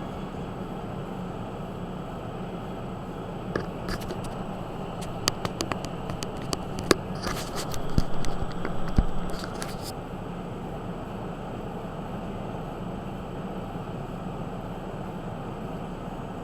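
Steady running noise of a vehicle on the road, with a cluster of sharp clicks and taps from about four to ten seconds in.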